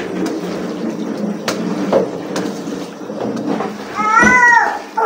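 Chicken jalfrezi sizzling in a nonstick wok as a wooden spatula stirs and scrapes through it, with a few sharp scrapes. About four seconds in, a short high-pitched call rises and falls.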